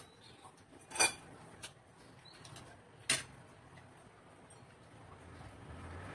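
A spoon and dishes clinking during a meal: a few sharp clinks, the loudest about a second in and another about three seconds in.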